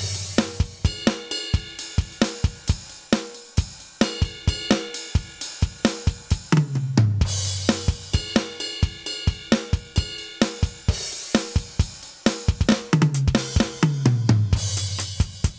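Aroma TDX-25 electronic drum kit played through its module on the K16 Latin Jazz preset: a steady groove of hi-hat, snare and kick. About seven seconds in and again near the end, a fill falls down in pitch across the toms and lands on a cymbal crash.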